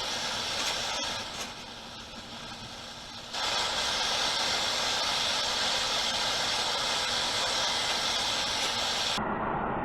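Blowtorch flame burning with a steady hiss, growing louder about three seconds in, as it heats the housing around a frozen bearing to free it.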